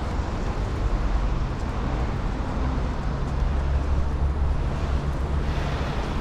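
Steady low rumble of busy city road traffic.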